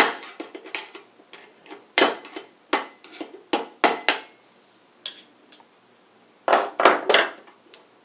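Sharp metallic clicks and taps of a screwdriver tip against the steel locknut of an EMT rain-tight connector in a steel electrical box, driving the locknut a quarter turn tight: a dozen or so taps over the first four seconds, then a pause, then a cluster of knocks near the end.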